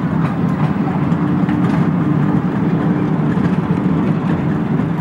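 Small ride-on park railway train running along its track: a steady low rumble and hum from the locomotive and the wheels on the rails, with a few faint clicks.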